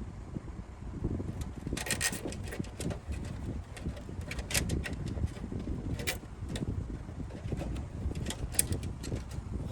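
Computer cables being handled and pushed into place in a PC case: rubbing with scattered, irregular sharp clicks and ticks.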